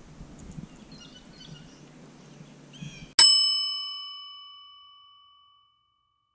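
A single bright bell-like ding, struck about three seconds in and ringing away over about two seconds. The outdoor background cuts out at the same instant, which marks the chime as an edited-in sound effect. Before it there is a faint outdoor hush with a few short high chirps.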